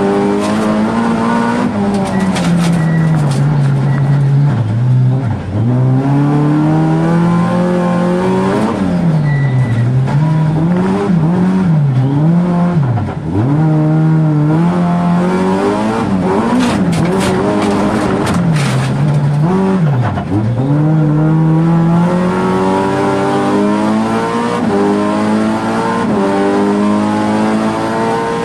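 Rallycross car's engine, heard from inside the caged cabin, running hard at racing speed. Its pitch climbs and falls over and over, dropping sharply a few times, and bursts of sharp clicks come about two seconds in and again past the middle.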